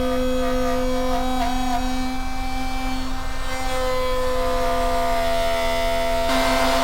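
Router on a horizontal router table running a solid carbide spiral upcut bit with a steady high whine, its pitch wavering and dipping slightly as a workpiece is plunged into the bit and moved back and forth to cut a mortise. A louder, noisier stretch of cutting comes near the end.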